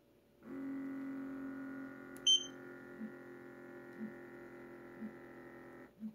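Lunix LX3 electric hand massager's motor humming steadily, with a short high beep from its touch panel a little over two seconds in, after which the hum runs a little quieter with faint pulses about once a second. The hum stops about a second before the end.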